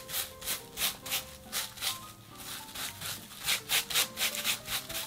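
A plastic-gloved hand rubbing perilla oil over crisp sheets of dried laver: quick rustling, scratchy strokes, about three to four a second, a little sparser in the middle.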